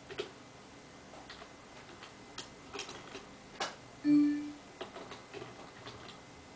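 Computer keyboard keys clicking irregularly as text is typed and backspaced. About four seconds in there is a short pitched tone lasting about half a second, the loudest sound.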